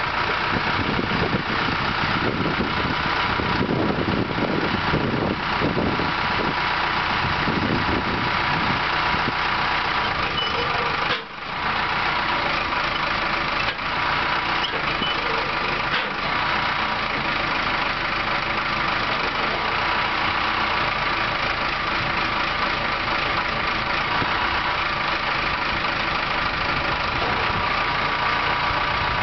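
Case skip loader's diesel engine running steadily while its hydraulics are cycled to work the loader bucket and rear box blade. The sound drops out sharply for a moment about eleven seconds in, then carries on steadily.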